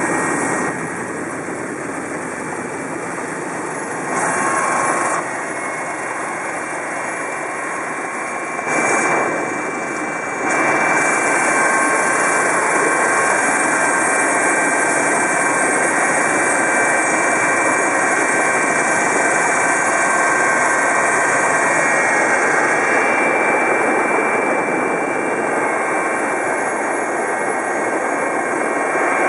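Helicopter turbine and rotor noise heard inside the cabin: a steady, dense drone with a faint whine. It gets louder for a moment about four and nine seconds in, then stays louder from about eleven seconds on.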